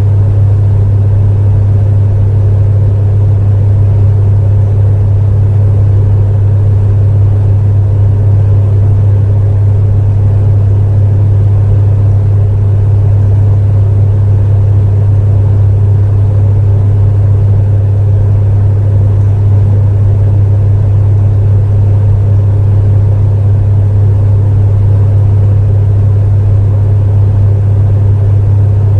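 Electric space heater running steadily, its fan motor giving a constant deep hum with no change in pitch or level.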